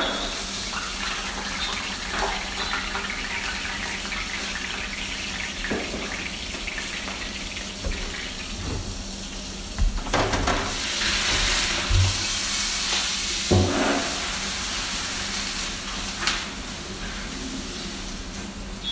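Fish sizzling in a frying pan with a few clinks of a utensil; about ten seconds in the hot pan goes to the sink, where tap water runs and hisses on it, with knocks of the pan against the sink.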